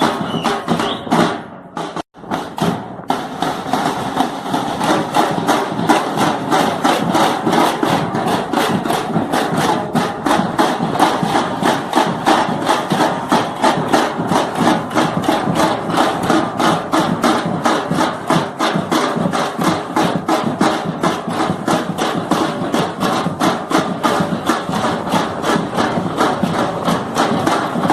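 Percussion group drumming a fast, steady beat of many drum strokes. The sound drops out briefly about two seconds in.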